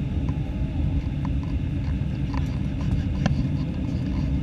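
Steady cabin noise of an Airbus A318-111 on approach: the low rumble of its CFM56 engines and the airflow over the fuselage, heard from a window seat. A faint click comes about three seconds in.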